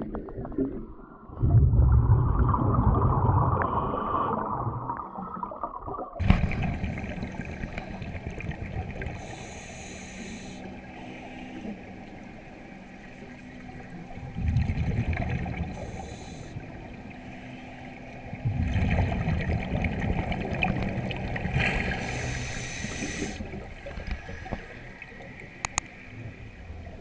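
Underwater sound of a scuba diver breathing on a vintage US Divers DA Aquamaster double-hose regulator: bursts of exhaust bubbles rumbling and gurgling every few seconds over a steady underwater hiss. The background changes abruptly about six seconds in.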